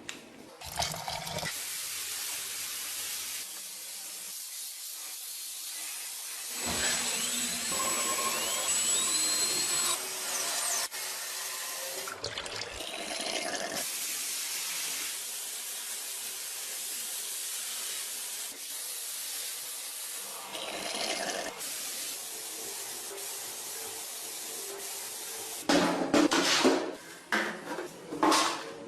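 Steady hissing spray noise, like a jet of air or liquid, broken by a few pauses, with louder irregular handling noises near the end.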